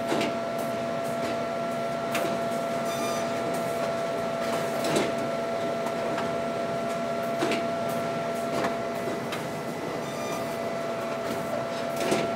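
Horizon book-binding line running: a steady machine hum with a constant whine. A sharp clack comes every two to three seconds as book blocks are jogged in the LBF-500 book block feeder and fed into the BQ-500 perfect binder.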